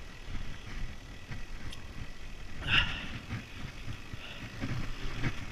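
Mountain bike riding over a dirt forest trail: tyres rumbling on the ground and the bike rattling over bumps, with wind on the microphone and a short louder burst about halfway through.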